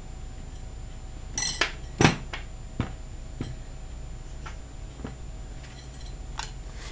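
A few light clicks and taps from hands handling things at a kitchen table, the loudest about two seconds in, over a steady low hum.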